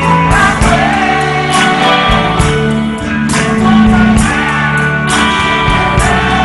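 Live band playing a pop-rock song with a steady drum beat and guitar, and a woman singing over it.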